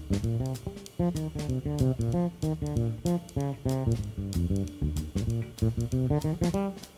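Jazz bass and drums: an electric bass guitar plays a fast run of plucked notes while the drum kit keeps time with cymbal strokes and light drum hits.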